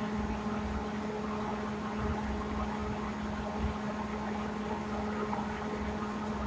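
Steady low hum with a faint hiss and low rumble: the room's background tone.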